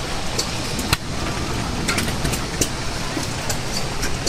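Antique hit-and-miss gas engine driving a wooden belt-driven farm machine through a long flat belt: steady running machinery with sharp clicks at irregular intervals.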